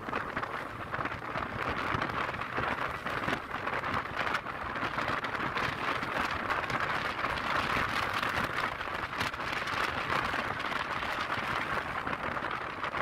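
Steady rush of wind over the microphone and road noise from a Yamaha Lexi scooter riding at road speed.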